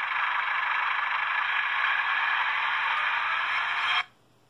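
Sound of a model Class 142 diesel unit from an ESU LokSound v5 decoder playing through a tiny Sugarcube speaker: a steady, thin running sound that cuts off suddenly about four seconds in. It cuts out as the direction is changed, which the owner puts down to the pickups needing adjustment.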